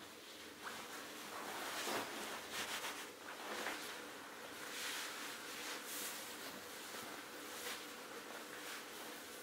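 Rustling of a Therm-a-Rest camp pillow's fabric as it is handled and squeezed, in uneven bursts.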